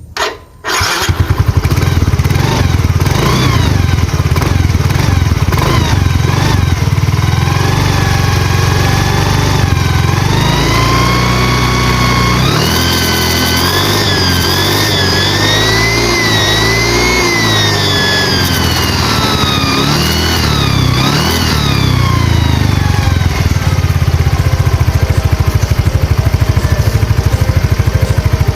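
Automatic scooter engine, a Yamaha Soul GT 125, starting and running, with the whistling turbo-like 'nging' whine from a fitted piece of zinc sheet. The whine rises and falls in pitch several times as the engine is revved, then the engine settles back to a steady idle.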